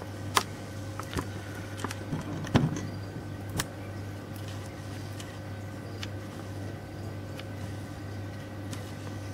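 Steady low hum with a few scattered short clicks and knocks, the loudest about two and a half seconds in.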